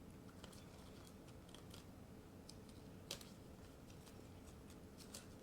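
Near silence with faint, scattered small clicks of handling, one slightly louder about three seconds in.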